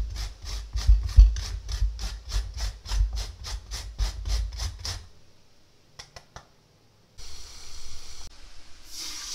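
A golden beet being rubbed up and down a box grater, about four grating strokes a second, stopping about five seconds in. After a few clicks and a short gap, a kitchen tap runs water into a glass measuring cup.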